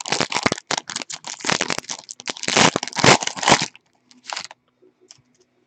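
A football card pack's wrapper being torn open and crinkled, a dense crackling that stops about three and a half seconds in, then one short rustle.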